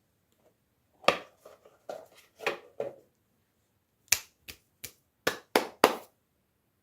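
Small hard plastic pieces clicking and tapping as they are handled: an irregular run of taps, then six sharp clicks about a third of a second apart.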